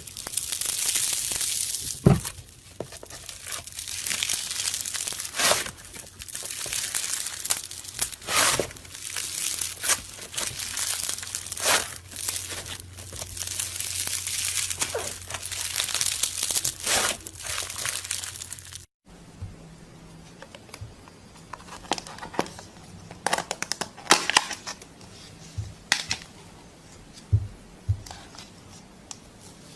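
Slime being squeezed and stretched by hand, making a dense crackling, crinkling noise with sharp pops. After a sudden cut about two-thirds of the way through, it goes quieter, with scattered pops and crackles.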